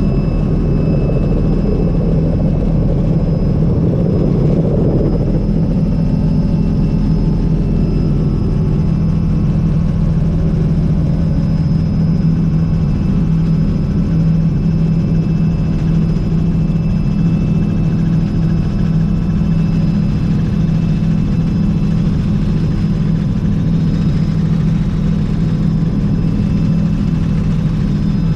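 A Robinson R66 helicopter's Rolls-Royce RR300 turboshaft and rotors are heard from inside the cabin during takeoff and climb-out. A steady, loud low rotor drone runs under steady high turbine whine tones, with a little more rumble in the first few seconds as it lifts off.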